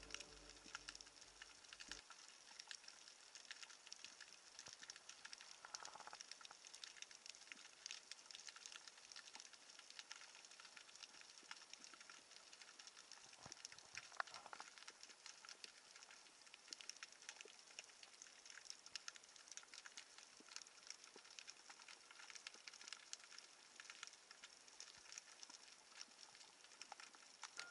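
Faint, dense crackling and clicking of the sea heard underwater, an even scatter of tiny snaps throughout.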